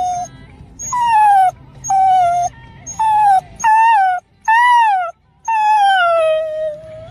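A Rottweiler puppy's high-pitched whines or small howls, about six in a row, many rising and then falling in pitch; the last is longer and slides down.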